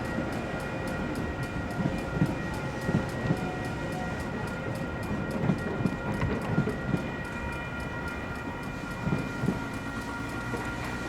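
Railroad crossing warning bells ringing, with rapid, evenly repeated strikes: WCH electronic bells and a Safetran mechanical bell. Under them a train rumbles through the crossing, its wheels thumping over the rail joints, and the thumps thin out in the second half.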